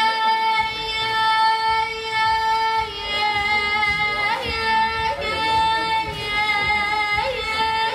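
A high voice singing long, very steady held notes, with short swooping slides between them about three, four, five and seven seconds in.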